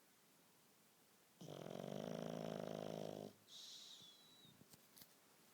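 Sleeping pug puppy snoring: one loud, fluttering snore of about two seconds starting about a second and a half in, followed by a short wheezy whistle through the nose.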